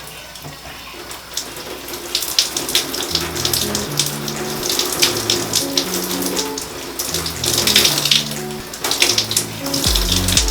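Shower water running and splashing as hair is rinsed under it, with background music and a bass line coming in about three seconds in.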